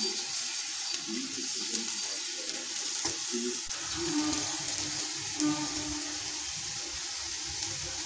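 Jalebi batter frying in hot oil in a kadhai: a steady sizzle with fine crackling as fresh spirals of batter bubble in the oil.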